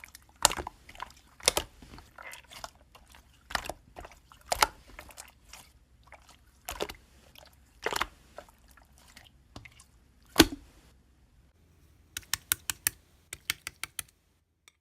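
Sharp clicks and taps at uneven intervals, then a quick run of clicks near the end.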